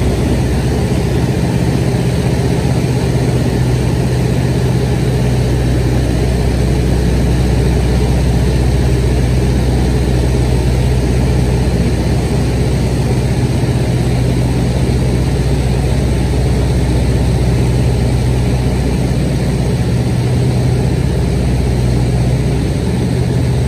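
Light aircraft's piston engine and propeller in flight, a steady low drone heard from inside the cabin.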